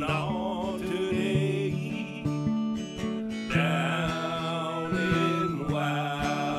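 Strummed acoustic guitar music: the channel's intro theme song, with a wavering melody line over the chords.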